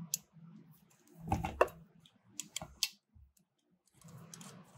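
Metal clicks and ticks of a 6 mm Allen key working the cable holding plug out of a spring balancer's aluminium cable drum. A few scattered clicks come first, then a quick cluster about a second and a half in and a few more a little later.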